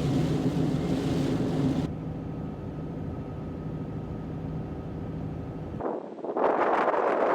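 A steady low vehicle engine drone, losing its high hiss about two seconds in. Near the end it gives way to wind gusting against the microphone.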